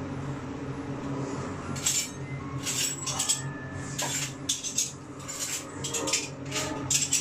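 Irregular light clinks and taps of kitchenware, metal and glass, starting about two seconds in and coming in quick clusters, over a steady low hum.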